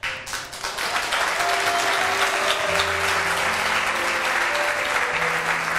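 Studio audience applauding steadily, with background music of long held notes underneath.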